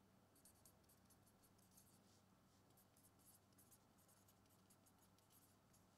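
Near silence: quiet room tone with faint, scattered scratching and ticking.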